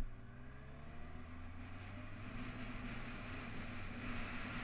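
Motorcycle engine running on the road, its pitch rising briefly in the first second as it accelerates. Wind noise on the microphone builds from about two seconds in.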